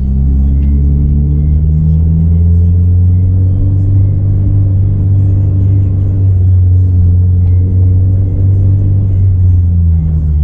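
A 2022 Subaru BRZ's 2.4-litre flat-four engine, fitted with aftermarket headers, running at light throttle with a deep low drone. Its note rises gently over the first few seconds, then holds steady.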